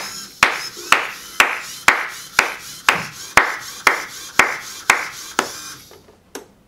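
Hands clapping steadily about twice a second, about a dozen sharp claps that ring briefly in the room, stopping a little after five seconds with one fainter clap later; the claps are the sound cue that sets a LEGO robot dancing.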